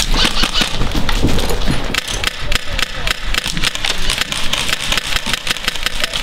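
Airsoft guns firing: a dense, irregular run of sharp shots, several a second.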